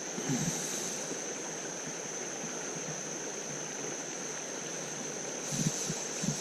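Creek water running over rocks: a steady rushing, with a few brief low bumps or splashes about a third of a second in and again near the end.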